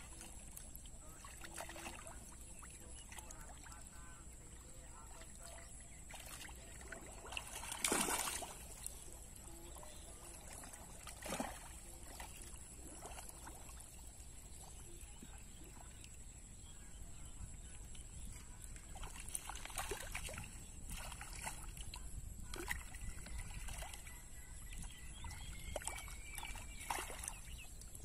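Hands splashing and sloshing in shallow water while groping along the muddy bottom, faint overall, with two louder splashes, one about eight seconds in and another a few seconds later.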